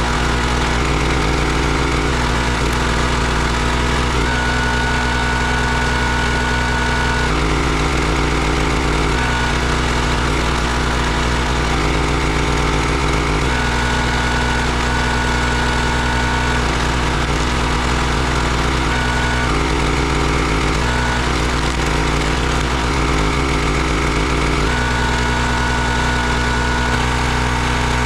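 Gas engine of a Country Line 32-ton log splitter running steadily, its note changing every few seconds as the hydraulic ram is worked through splitting strokes. A high steady whine comes in during some of the strokes.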